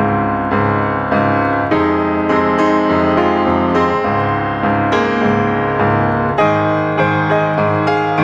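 Background piano music: chords and notes struck about every half second, each ringing on.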